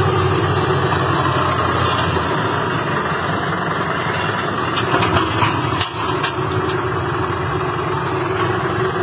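ACE tractor's diesel engine running steadily, with a few sharp clicks and knocks about halfway through.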